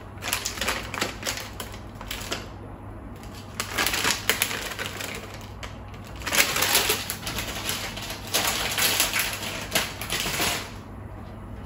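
Plastic lolly packet crinkling and rustling as raspberry twist lollies are tipped out of it into a glass jar, in four bursts of crackly clicking with short pauses between, dying away near the end.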